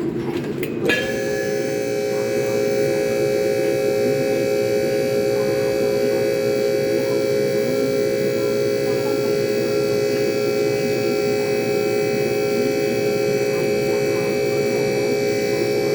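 A steady, unchanging machine hum with a strong fixed pitch, switching on about a second in.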